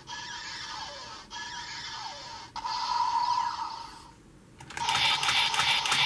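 Sengoku Driver transformation belt's electronic standby sound loop playing with a lockseed locked on, a short phrase repeating about every second and a quarter. Near the end it grows louder and busier, with rapid sharp strokes.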